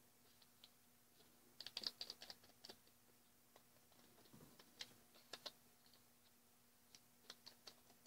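Origami paper being folded in half and creased by hand: faint, crisp crackles and ticks in three short clusters.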